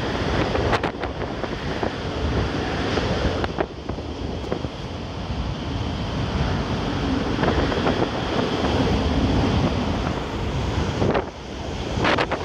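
Typhoon-force wind gusting hard and buffeting the microphone: a continuous loud rushing rumble, with a few short knocks.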